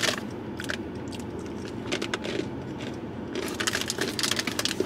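Crunchy mustard pretzels being chewed, with irregular crisp crunches that grow denser in the second half.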